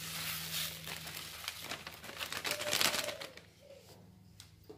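Black sesame seeds poured onto a plastic basin of mixed grain and spread by hand: a dry rustling patter of small seeds that fades out about three seconds in.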